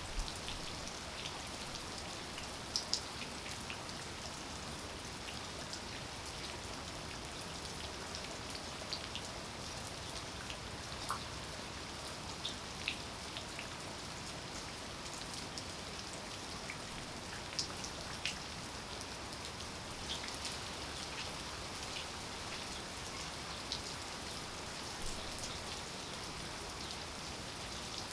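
Steady rain falling, with scattered individual raindrops ticking close by, a few of them louder.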